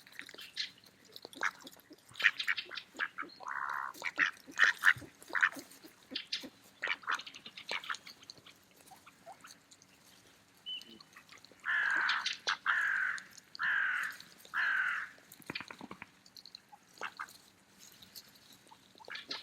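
Mallard ducks quacking, with scattered short, quick calls in the first half and four longer, louder quacks in a row a little past the middle.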